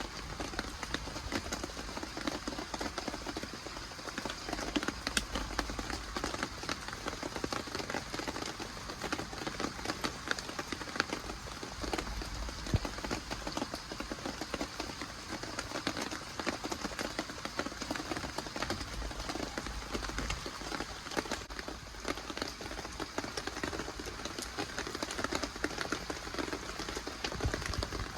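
Steady rain falling, a dense continuous spray of fine drop ticks.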